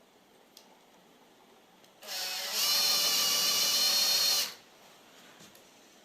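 Electric drill driving a screw: it runs for about two and a half seconds, starting softer, then going up to full speed, and stops abruptly.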